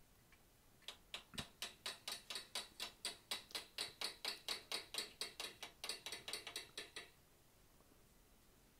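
Rapid light hammer taps on a hand-held curved chisel, about five a second for some six seconds, as it cuts into hot steel to isolate the nose of a forged bear's head. The taps start about a second in and stop short of the end.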